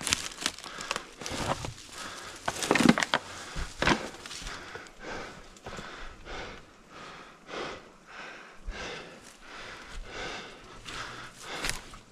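A climber's heavy breathing, in quick regular breaths, mixed with crunching and scraping of snow and ice; the crunching is loudest in the first four seconds.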